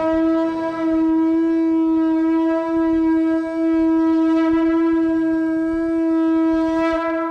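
Conch shell (shankh) blown as a horn, sounding one long, steady note with a slight waver in pitch.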